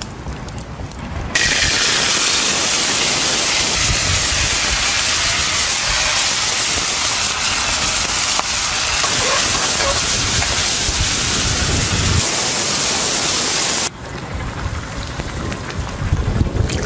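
Hot oil sizzling hard as whole spices (dried chillies, star anise, cinnamon) fry in a wok: a loud, even hiss that starts suddenly about a second in and cuts off suddenly near the end.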